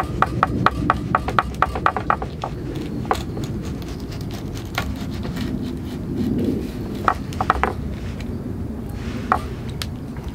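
Opinel knife working a small fish on a wooden cutting board: a quick run of sharp scraping clicks, about five a second, then a few scattered clicks.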